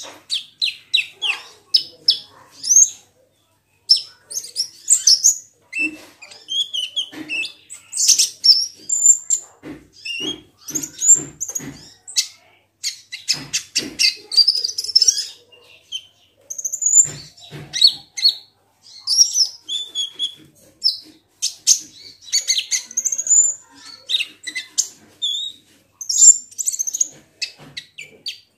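Kolibri ninja sunbird singing: fast, high-pitched chirps and short twittering trills in quick bursts, separated by brief pauses.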